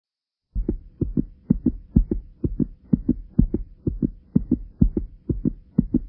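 Racing heartbeat sound effect: a fast lub-dub, about two beats a second, starting about half a second in.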